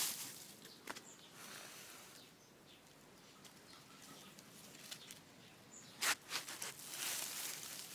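Faint rustling and crunching with a few short, sharp scuffs, the loudest about six seconds in.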